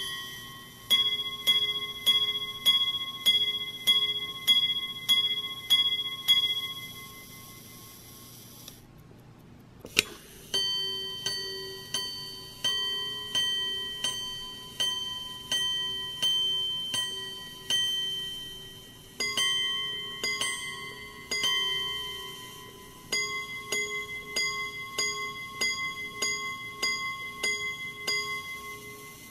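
Minute repeater of an 1890s Swiss gold pocket watch striking the time on its gongs: a run of evenly spaced ringing strikes, about two a second. A pause and a single click follow about ten seconds in, then a further series of strikes, quicker towards the end.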